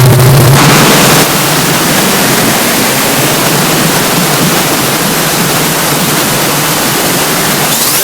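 Loud, steady static-like rushing noise with no tone in it, coming in as a low, heavily distorted buzzing tone cuts off about half a second in.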